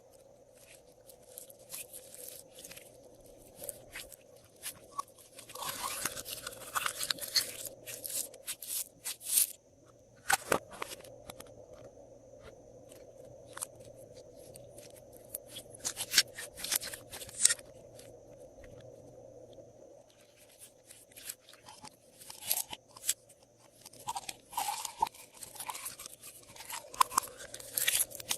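Hands squishing and mixing slime, making clusters of sticky crackling and popping clicks: a long run about six seconds in, a short one around sixteen seconds, and a busy stretch over the last seven seconds, with quieter squelching between.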